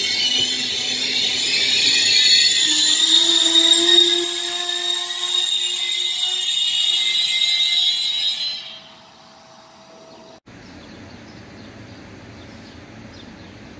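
Wheels of an Intercity passenger train squealing high-pitched against the rails as the coaches run past. The squeal fades out about eight to nine seconds in, and after a sudden break only quieter steady background noise remains.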